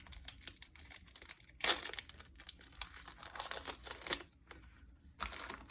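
Foil wrapper of a baseball card pack being torn open and crinkled by hand: a run of crackling with short sharp tearing rips, the loudest about a second and a half in and again near the end.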